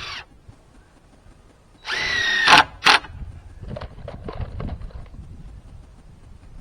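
Power drill running in a short burst, then for about two-thirds of a second with a steady whine, followed by two sharp knocks and lighter knocking.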